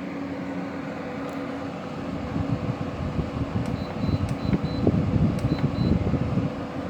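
LG 12,000 BTU window air conditioner running in cool mode: a steady fan hum that grows louder and rougher about two seconds in as the unit comes up to speed. It runs without the rattling 'funny noises' of the unit it replaced.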